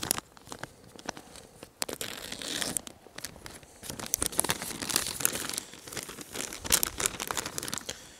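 Plastic ration-pack packaging crinkling and tearing as it is handled and pulled open by hand, in an irregular run of sharp rustles and rips.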